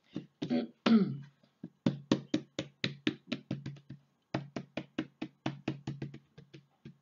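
A deck of fortune-telling cards being shuffled by hand: a couple of louder swishes about a second in, then a steady run of quick card taps, about four a second.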